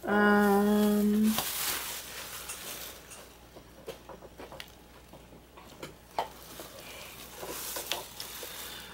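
A woman's held hesitation sound, about a second long and on one steady pitch, then crinkly rustling and light clicks and taps as a foam-backed die cut is handled.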